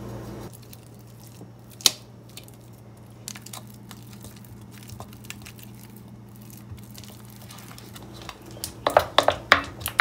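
Softened butter being mashed and stirred by hand with a utensil in a ceramic bowl: soft squishing and scraping, with scattered light clicks of the utensil against the bowl. A sharp click comes about two seconds in, and a quick run of louder clicks near the end.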